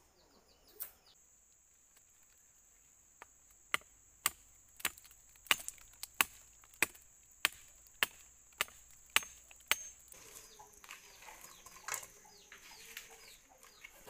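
A machete chopping into the trunk of a jatobá tree to cut away its bark: about a dozen sharp, even chops, a little under two a second, for about six seconds.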